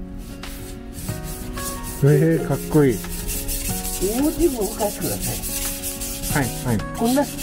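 A knife blade being sharpened on a whetstone: repeated back-and-forth strokes of steel scraping across the stone.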